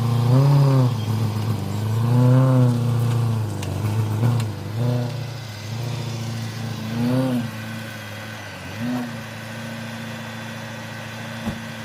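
Supercharged BMW E92 M3's V8 engine running while the car creeps along. Its revs rise and fall in about half a dozen short blips, then settle to a steady idle for the last few seconds.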